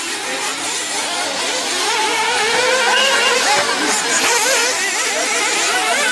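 Several radio-controlled off-road buggies' small high-revving engines racing together, their overlapping buzzing whines rising and falling constantly as the cars accelerate and brake around the track.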